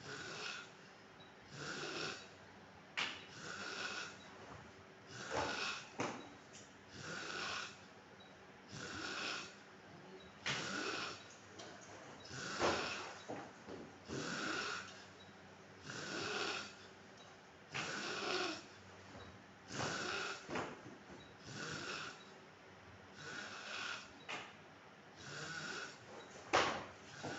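A man snoring, each breath a noisy snore repeating about every one and a half to two seconds, with a brief sharp sound near the end.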